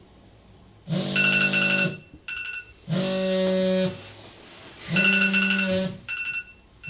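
Opening music: three loud held chords of about a second each, with a short higher note after the first and the third.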